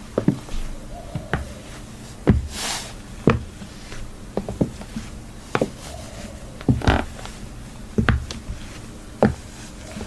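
High-heeled shoes clicking on a hard floor in slow, uneven steps, about one sharp click a second, some with a dull thump beneath.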